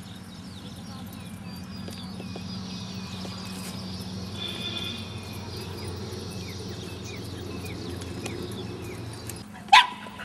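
Outdoor field ambience: a steady low hum with many short, high chirps throughout. Near the end comes a single sudden, loud dog bark.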